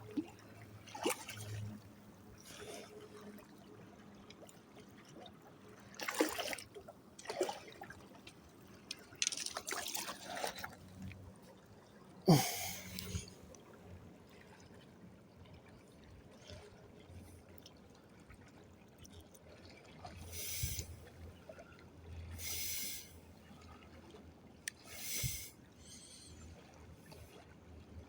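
Water splashing and trickling in short separate bursts, about a dozen scattered through, over a faint steady background.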